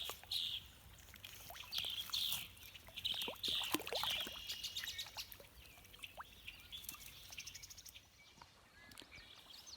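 A bird calling a string of short chirps, about two a second, that stops about halfway through. Scattered faint clicks can be heard, and a brief high trill comes later.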